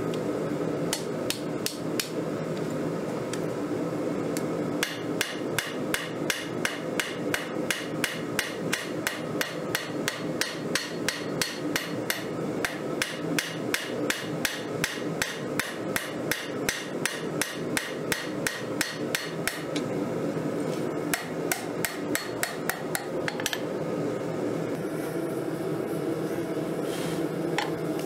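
Hand hammer striking red-hot 1080 high-carbon steel on an anvil while forging a knife blade. The blows come slowly at first, then in a fast, even run of two to three a second for about fifteen seconds, then slow again near the end, over a steady low hum.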